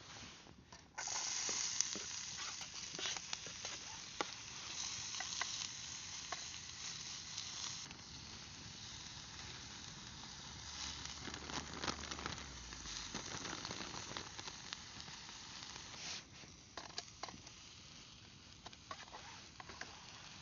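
Onions, peppers and mince frying in hot cooking oil in a tin over campfire coals. The sizzle starts suddenly about a second in, is loudest at first and then settles, with scattered clicks.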